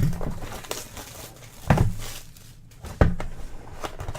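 Sealed trading card packs and card boxes being handled on a tabletop: light rustling of the wrappers, with two short thumps as packs or boxes are set down, one a little under two seconds in and another about a second later.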